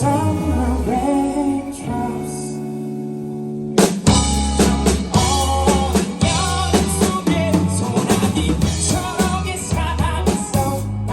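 A band playing a song: sustained chords for the first few seconds, then the drum kit comes in with the full band about four seconds in, with a voice singing over it.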